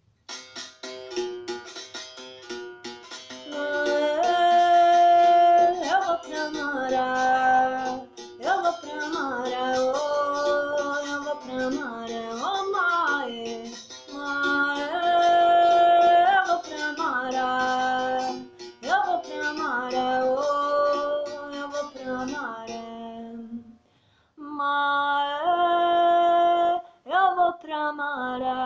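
A woman singing a song in phrases, to the accompaniment of a berimbau, whose steel wire is struck with a thin stick in a steady rhythm.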